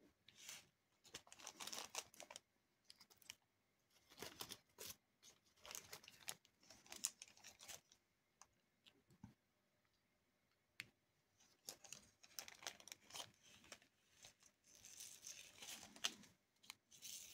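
Faint, irregular bursts of scratchy rustling with small sharp clicks from a diamond painting drill pen working resin drills onto the canvas.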